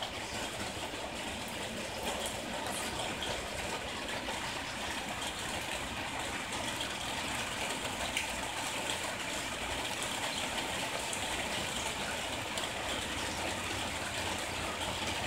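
Steady monsoon rain falling, an even hiss without a break.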